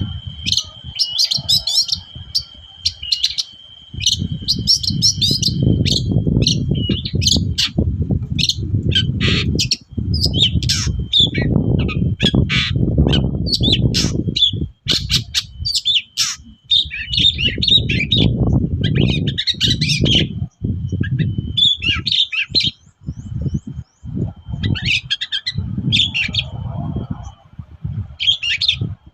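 Long-tailed shrike singing a fast, unbroken run of short chattering and scratchy notes, the 'gacor' song used as a lure for other shrikes. A thin steady high tone runs beneath much of it, and a low rumble comes and goes underneath.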